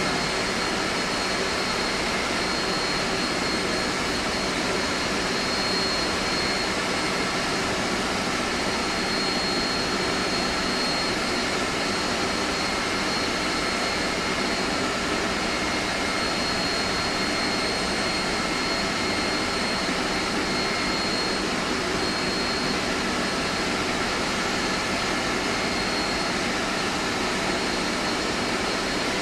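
Steady machinery noise of an air-conditioning chiller plant room, pumps and plant running: a continuous hum and hiss with a faint steady high whine.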